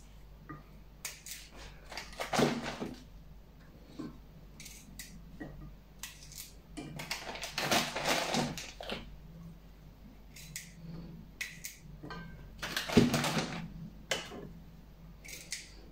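Small pickling cucumbers being trimmed with a knife over a china plate: scattered clicks and scrapes of the blade and cut ends against the plate, with longer rustles as the cucumbers go into a plastic bag.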